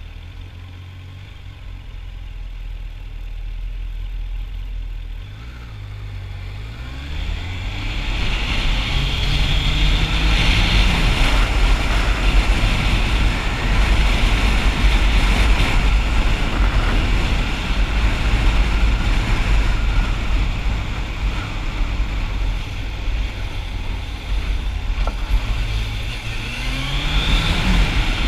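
Motorcycle engine idling low, then pulling away about five seconds in, its pitch rising through a couple of gear changes. Rushing wind and road noise builds and stays loud at speed, and the engine note rises again near the end.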